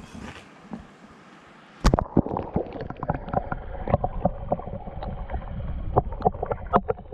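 A chorus of frogs croaking, a dense run of rapid clicking calls that starts suddenly about two seconds in, over a low rumble.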